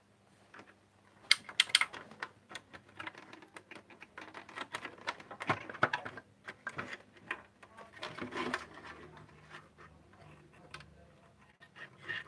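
Hands handling and fiddling with an intruder alarm panel: a run of irregular clicks, taps and scrapes.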